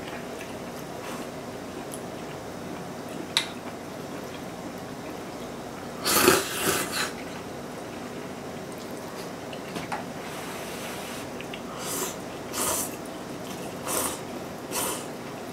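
Glass noodles being slurped from a bowl: a loud slurp about six seconds in, then several shorter slurps near the end. A single sharp click comes a few seconds before the first slurp.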